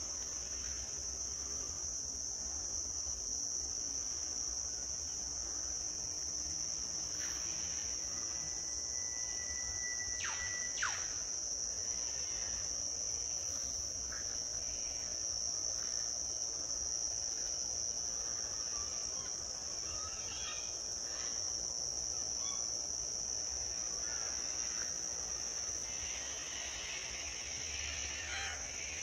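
Insects trilling in a steady, unbroken high-pitched chorus. About a third of the way in, a bird gives one held whistle that ends in a quick downward sweep.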